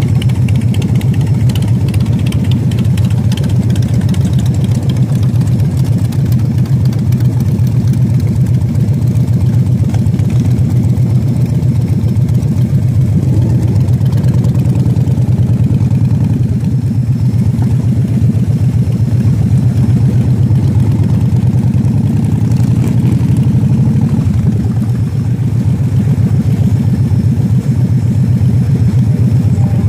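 Motorcycle engine running steadily at low speed, heard from the bike's own seat: a loud, even low rumble that holds level throughout.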